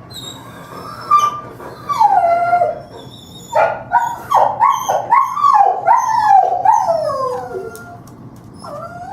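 A kennelled dog whining and howling in a run of short, high cries that fall in pitch, about two a second, with a few single cries before them.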